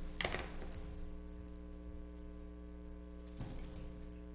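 Quiet room tone with a steady low hum, broken by a brief rustle or click just after the start and another about three and a half seconds in.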